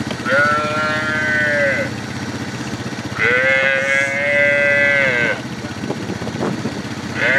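Calf bawling in distress as it is held down: three long, drawn-out calls of a second and a half to two seconds each, the third starting near the end.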